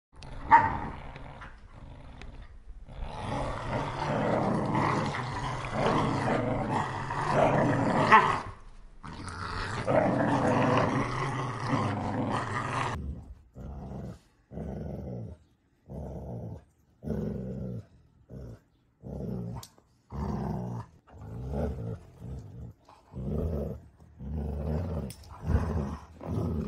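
Dogs growling in play. For the first half the growling is continuous and dense; after that it comes in short bursts, roughly one a second, as a dog tugs on a rope toy in a tug-of-war.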